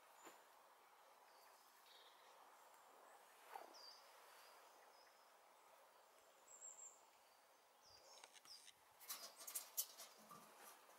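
Faint, scattered bird chirps over quiet outdoor background, with a cluster of sharp clicks and scrapes about eight to ten seconds in.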